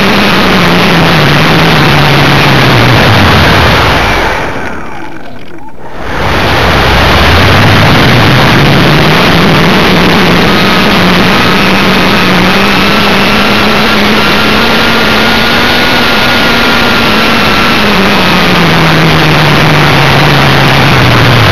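Multiplex FunJet Ultra's motor and propeller heard from an onboard camera under heavy wind rush. The propeller tone falls as the throttle comes back, cuts out with a dip in level for about two seconds, then sweeps back up and holds steady before falling away again near the end.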